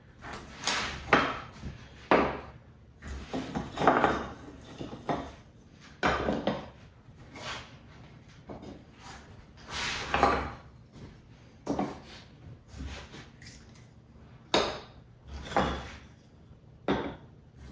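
Loose wooden panel pieces being taken out and stacked, knocking and sliding against one another: irregular clacks and scrapes with short pauses between them.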